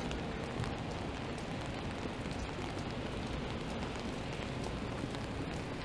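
Steady hiss of rain falling on a wet city street.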